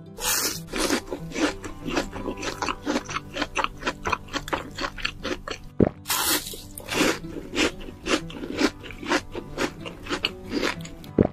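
Crunchy eating sound effects: a loud crisp bite into fried shrimp, then a quick run of chewing crunches, with a second bite and chewing about six seconds in. Background music plays underneath.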